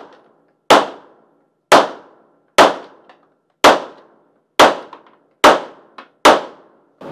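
Pistol fired in slow, steady succession: seven sharp shots about a second apart, each with a short echoing tail, and a fainter sharp crack just before the last shot.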